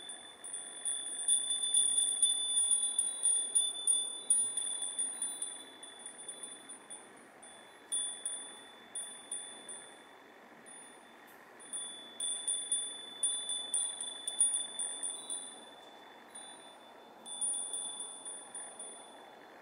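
A wind chime ringing with a clear high tone in clusters of quick tinkles. It is busy for the first few seconds and again from about twelve seconds in, sparse in between, and each ring fades away. A faint steady street hum lies underneath.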